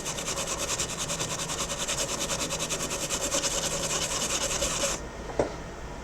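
Fast, even scraping or rubbing, about ten strokes a second, that stops about five seconds in and is followed by a single sharp click.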